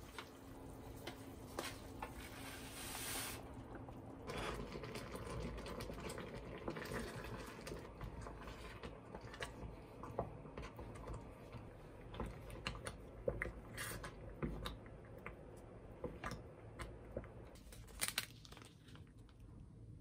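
Small kitchen sounds: wet, liquid food noises with many scattered small clicks and taps, and a steady low hum during the first few seconds.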